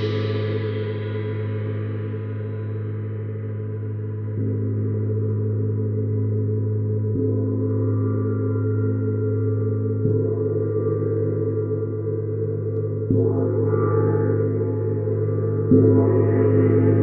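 Neptune gong played with a soft mallet in gentle strokes about every three seconds, five in all, its deep hum ringing on continuously under shimmering overtones. The last two strokes are stronger and bring out a brighter wash of upper ringing.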